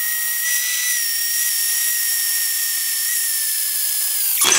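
ES Industry LH216K cordless drill boring through thin-walled steel square tube with an 8 mm metal-drilling bit, its motor whine sped up to triple speed so it sounds as a steady, high-pitched whine. The pitch dips slightly near the end, and the sound changes abruptly just before the end.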